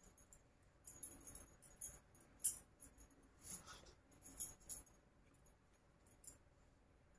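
Faint, light jingling of metal bangles on a wrist as the hands move, a quick run of small jingles from about a second in that dies away after about five seconds.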